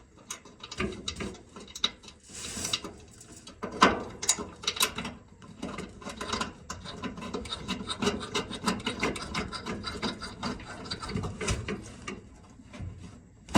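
A screw being driven by hand while mounting a replacement dryer idler pulley: an irregular run of rasping, scraping clicks from the tool and metal parts, with a few louder knocks.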